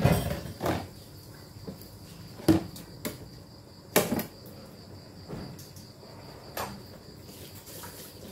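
Rendang spice paste frying in oil in a wok, spitting with irregular sharp pops, the loudest near the start and about two and a half and four seconds in.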